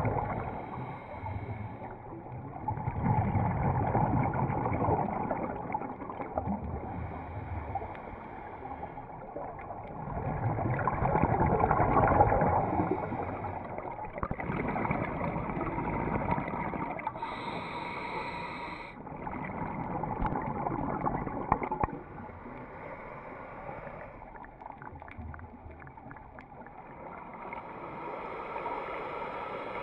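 Muffled underwater sound inside a GoPro housing: a scuba regulator's exhaust bubbles gurgling in slow swells that rise and fade every several seconds with the diver's breathing. A brief higher hiss comes about seventeen seconds in.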